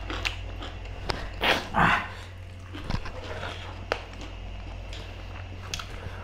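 A man coughs twice in quick succession, harshly, about a second and a half in, while eating spicy curry. A few light clicks and taps at the table follow, over a steady low room hum.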